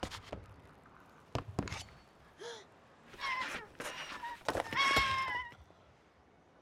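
A few thuds and footfalls of someone scrambling over crates, then a wounded baby dragon crying out in a string of high, wavering squeals over the last few seconds.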